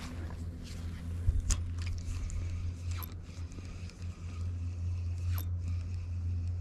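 Spinning reel cranked to retrieve a lure just after a cast, giving scattered light clicks and scrapes over a steady low rumble.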